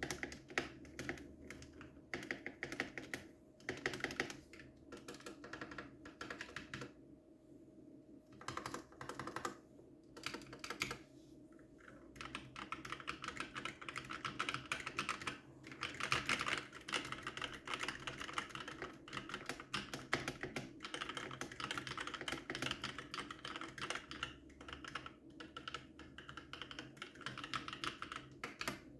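Typing on an ASUS ROG Strix Scope NX mechanical keyboard with ROG NX Red linear switches: irregular bursts of keystrokes with brief pauses, then steady fast typing from a little before halfway through.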